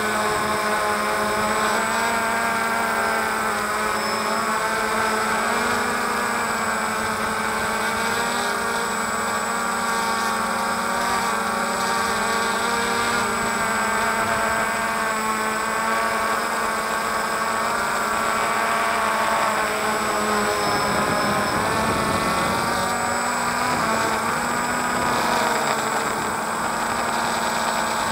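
DJI Phantom quadcopter's electric motors and propellers whining steadily in flight, heard up close from the drone itself. Several tones waver up and down together as the motors change speed to manoeuvre, with a brief dip and wobble about twenty seconds in.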